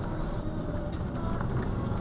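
Car engine and tyre noise heard from inside the cabin through a dashcam's microphone: a steady low rumble.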